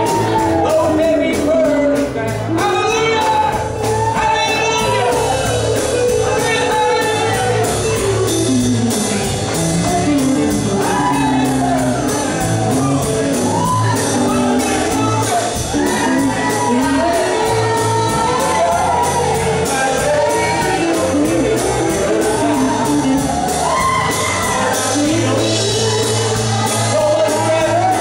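Live gospel band of piano, electric lead and rhythm guitars, bass and drums playing an up-tempo song over a steady drumbeat, with singing and shouts from the congregation.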